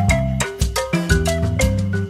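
Upbeat background music: a melody of short struck notes over a bass line, with a steady beat.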